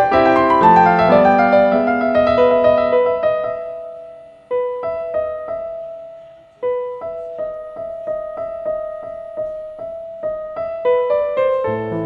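Piano music: ringing chords that die away, a second chord that fades out, then a steady pattern of repeated notes about three a second.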